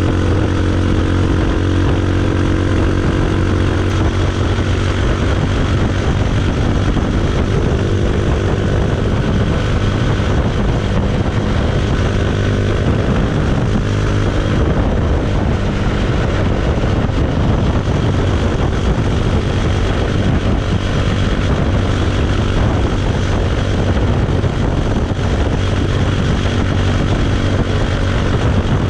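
Bajaj Pulsar 220's single-cylinder four-stroke engine running through its exhaust, a steady, even drone with no revving.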